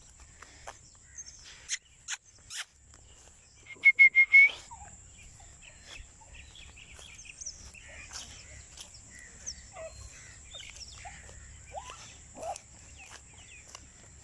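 Birds calling outdoors: scattered short chirps and calls. About four seconds in comes one loud call, a few quick sharp notes and then a short held note. A steady high hiss runs underneath, and there are a few sharp clicks in the first few seconds.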